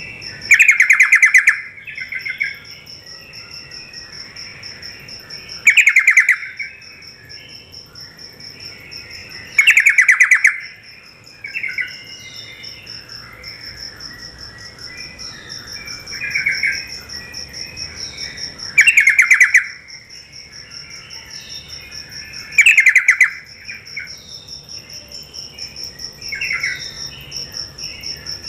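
Yellow-vented bulbul (trucuk) singing: five loud, short, bubbly phrases a few seconds apart, with softer phrases between them. A steady pulsing cricket trill runs underneath.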